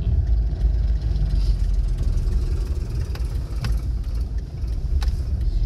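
Car on the move: a steady low engine and road rumble, with a few short clicks in the second half.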